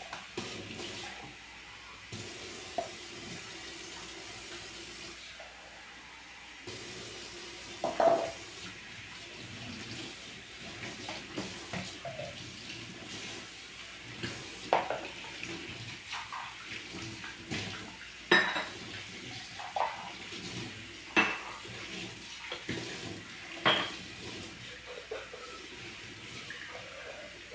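Dishes being washed by hand at a kitchen sink: water runs steadily while cups, plates and cutlery knock and clink against each other, with about six sharper clinks spread through the second two-thirds.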